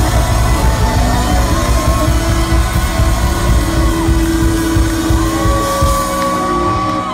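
A live rock band plays loudly with a heavy low end and held notes. Near the end the bright top of the sound drops away and held notes ring on as the song winds down.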